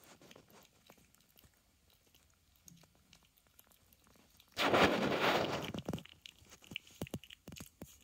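Puppy eating wet food chunks from a stainless steel bowl: soft scattered smacking and licking clicks. Just past the middle comes a loud rustling burst of noise lasting about a second and a half.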